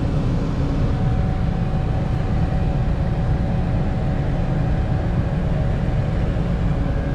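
Rooftop air-conditioning equipment running: a steady mechanical drone with a constant hum laid over a low rumble.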